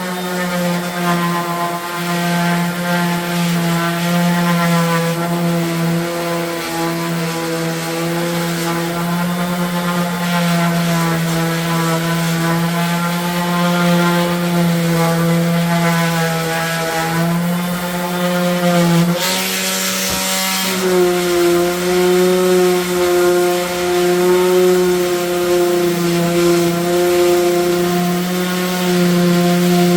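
Electric power tool motor running steadily while working wood, with a brief burst of hiss and a shift in pitch about two-thirds of the way through.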